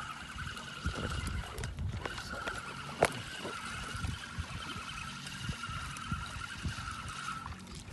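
Sounds aboard a small fishing boat at sea: water and hull noise with a steady high whine that stops near the end, and one sharp knock about three seconds in.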